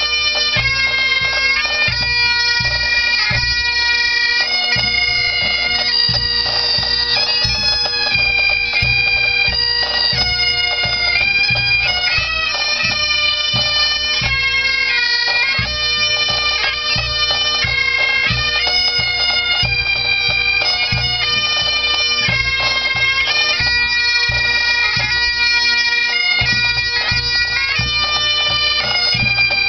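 Pipe band of Highland bagpipes playing a tune, the melody stepping from note to note over steady, unbroken drones.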